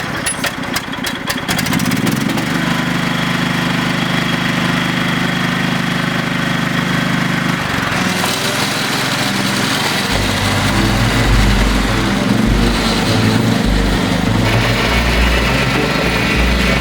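Small farm tractor engine running just after starting, holding a steady note for the first several seconds, then going rougher and lower with uneven pulsing from about ten seconds in.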